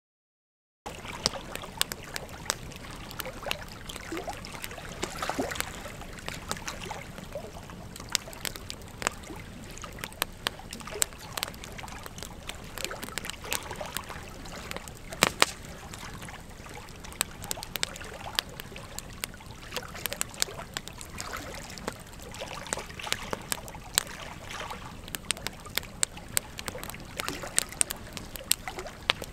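Wood fire of burning logs crackling: a steady hiss of flames with frequent sharp pops and snaps, the loudest about fifteen seconds in. It starts about a second in.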